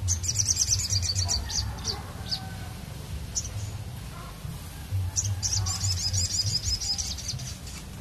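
A caged sogon songbird singing: a fast run of high chirps at the start, a few single notes, then a second fast run of chirps about five seconds in.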